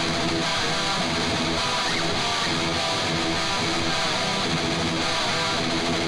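Music: a guitar alone playing a short repeating figure.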